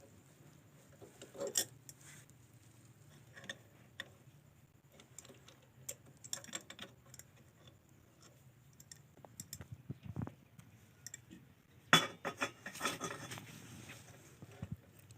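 Light, scattered metallic clicks and clinks of small diesel injector nozzle parts and tools being handled, with a louder burst of clatter about twelve seconds in.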